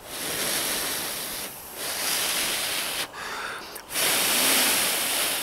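A person blowing hard into a smouldering hole in a chunk of chaga fungus, three long blows, feeding air to the ember to build it into a coal.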